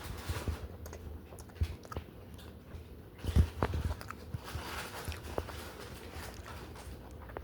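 A person biting and chewing a fried chicken sandwich, with several short crunches and mouth clicks, the loudest about three and a half seconds in.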